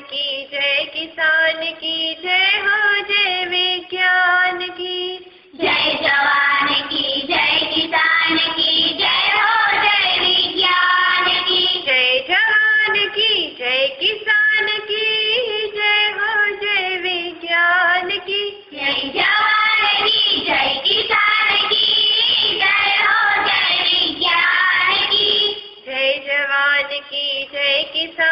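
A Hindi poem sung to music by a high voice. The singing is sparer at the start and near the end, with fuller, louder passages in between.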